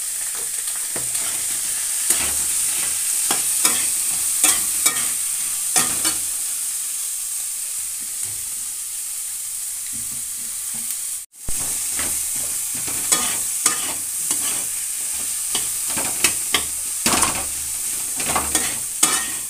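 Carrots, peas and potatoes frying with spices in a metal kadhai, with a steady sizzle, while a metal spatula stirs and scrapes against the pan in irregular clacks. The sound drops out for a moment a little past halfway.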